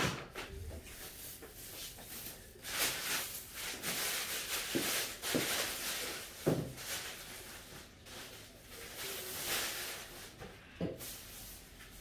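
Rustling of clothes and bags with a few light knocks, like drawers or cupboard doors, as belongings are unpacked.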